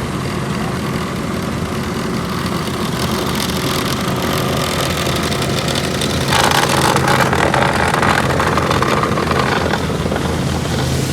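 Heavy paving machinery engine running steadily with a low hum. About six seconds in, a louder rushing noise joins for about three seconds.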